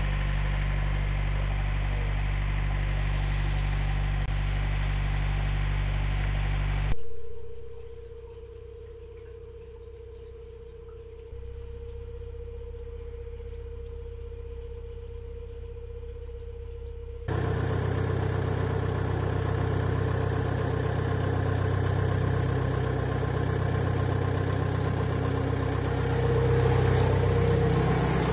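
A narrowboat's engine chugging steadily as the boat cruises. It drops to a much quieter, muffled hum for about ten seconds in the middle, then comes back at full level.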